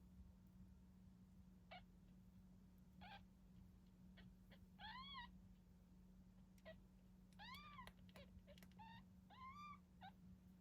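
Nine-day-old kitten mewing: a series of about six short, high-pitched mews, each rising and falling in pitch, over a steady low hum.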